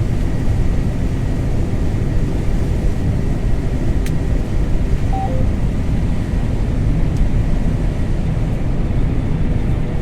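Steady low engine and drivetrain rumble of heavy farm machinery heard from inside the cab, with a faint steady whine and a single sharp click about four seconds in.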